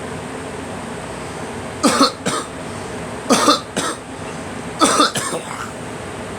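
A girl coughing in three short bouts of two coughs each, about a second and a half apart: a chesty cough trying to bring up phlegm that won't come up easily. A steady hiss runs underneath.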